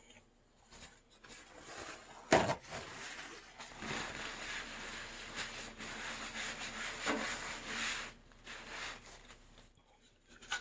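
A wad of paper towel rubbing and scrubbing over the rusty steel side panel of a computer case, spreading rust-removing paste. A sharp knock comes about two seconds in, then steady scrubbing runs until about eight seconds in.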